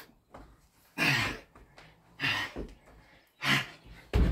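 Heavy, forceful breathing from a man exhausted mid-way through a set of Navy Seal burpees: short, hard exhales about once a second, the loudest near the end with a low thud under it.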